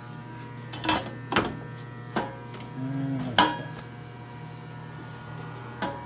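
Stainless steel side panels clanking as they are fitted onto a commercial ice machine: four sharp metal knocks in the first three and a half seconds, over a steady machine hum.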